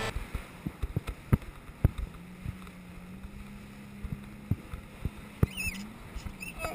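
Ambient sound aboard a boat at sea: irregular sharp knocks over a background of water and wind noise, with a steady low hum for a few seconds in the middle and a couple of brief high whistle-like glides near the end.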